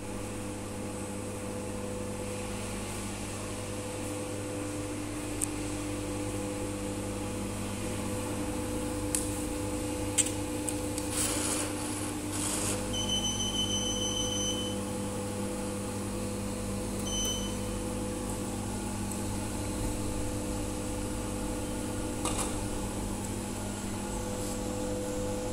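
Coffee vending machine humming steadily. About eleven seconds in, its banknote acceptor whirrs for a couple of seconds. A long electronic beep follows, then a short one a few seconds later, with a few light clicks.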